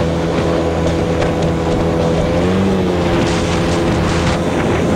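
ATV engine running steadily under way at speed, its note rising briefly about halfway through, with wind noise on the microphone.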